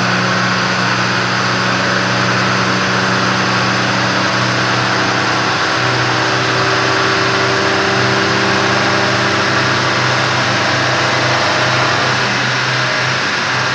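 Car engine running loudly at a steady speed, with a dense rushing noise over its note.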